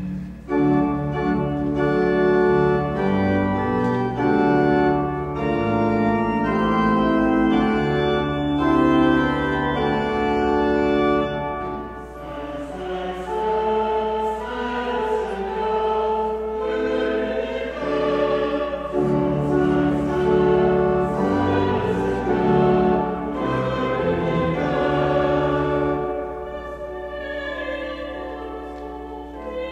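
Church organ playing held chords, with singing joining in about twelve seconds in and carrying on over the organ.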